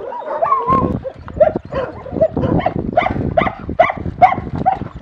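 Dogs barking and yelping in a rapid run of short, overlapping calls, several a second.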